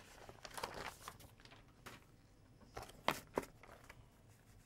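Sheets of drawing paper being handled and flipped on an animation desk: soft rustles and a few crisp taps, the loudest a little after three seconds in.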